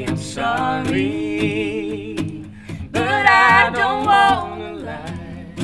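A woman sings two long, held phrases with a wavering vibrato over two strummed acoustic guitars; the second phrase, about three seconds in, is the louder.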